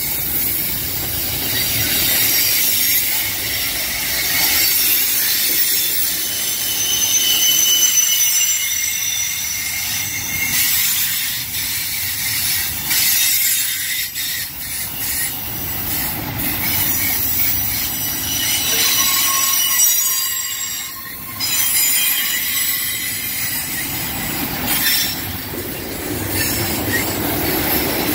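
Double-stack intermodal train's steel-wheeled well cars rolling past close by, with a steady low rumble. The wheels keep up a high-pitched squeal against the rails as the cars round a curve.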